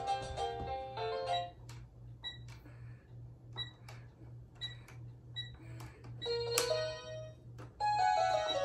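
Children's toy electronic keyboard: a tune plays for about a second and a half and stops, then single notes and beeps sound one at a time, with pauses between them, as keys are pressed. A fuller tune starts again near the end.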